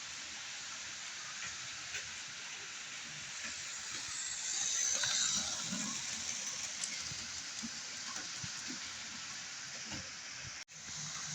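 Model train running on its track: a small diesel locomotive's electric motor and a rake of wagons rolling over the rails, a steady hiss with small clicks from the wheels and rail joints, growing louder for a couple of seconds as the train passes close. The sound cuts out abruptly for a moment near the end.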